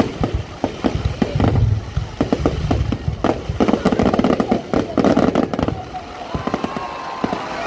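Fireworks going off: a dense run of sharp pops and crackles over low booms.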